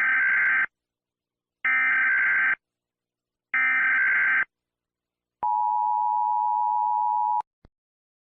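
Emergency Alert System SAME header: three identical bursts of data tones, each just under a second long and about two seconds apart, then the lower two-tone attention signal held for about two seconds before it cuts off abruptly, followed by a faint click.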